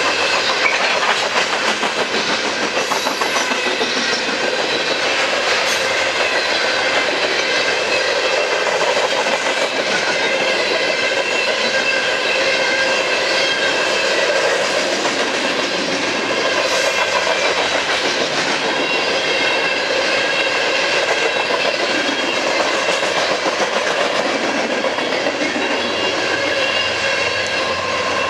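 Coal train hopper cars rolling past at speed, steel wheels on rail making a steady clatter.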